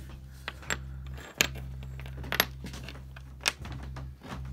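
Copper-foiled stained glass pieces clicking as they are set down one at a time on a wooden workbench: several short, light, sharp clicks spaced irregularly, over a steady low hum.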